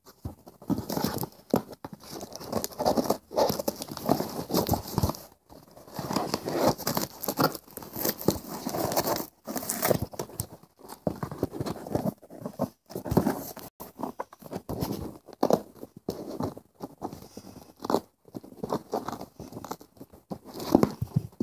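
A cardboard shipping box being cut and torn open, and the packing material inside rustled and crumpled in irregular bursts.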